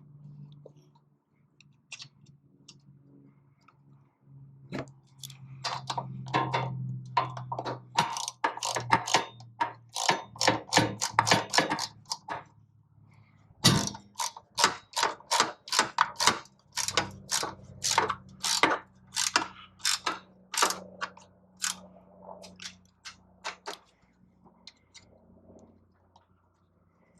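Socket ratchet clicking in two long runs of quick strokes as strut-bar bolts are tightened with a 13 mm socket, over a low steady hum.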